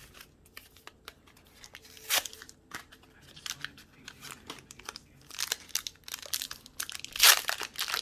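Pokémon Darkness Ablaze booster pack's foil wrapper crinkling and being torn open: one sharp crackle about two seconds in, then a run of crinkling and tearing that is loudest near the end.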